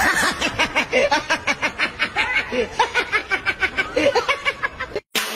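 A person laughing in quick, rapid pulses. The laughter cuts off abruptly just before the end, and electronic dance music begins.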